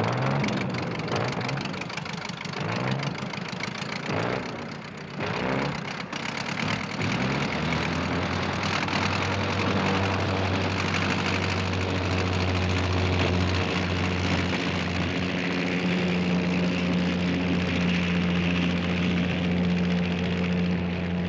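Cartoon sound effect of an old propeller plane's piston engine starting after the "Contact" call. It sputters and coughs unevenly for about seven seconds, then settles into a steady, even drone.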